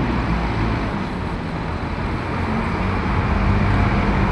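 Diesel double-decker bus engine running as the bus drives up and turns close by, with tyre and road noise; it grows louder over the last couple of seconds as the bus nears.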